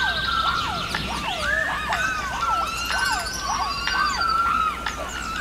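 A rainforest sound effect: a quick run of whooping animal calls, each rising then falling in pitch, two or three a second, over steady held tones.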